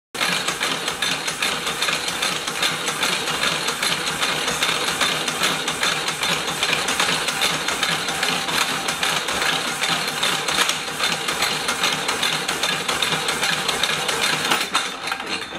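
Keller power hacksaw running, its 6 TPI Starrett Red Stripe blade stroking back and forth through a 1-inch-thick 1018 mild steel bar with a steady rasping clatter. The sound dies down at the very end.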